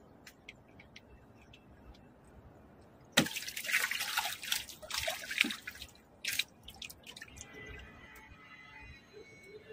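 Water splashing and dripping as a hooked fish thrashes on the trot line: a few light drips at first, then a sudden loud burst of splashing lasting about three seconds, and a second short splash just after.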